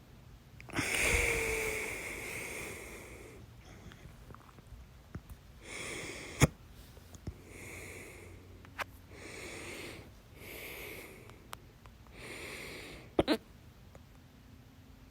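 A person with hiccups breathing heavily: a long loud breath near the start, then a run of shorter breaths about every second and a half. Three sharp hiccups cut through, the loudest about six seconds in, then one near nine seconds and a double one near the end.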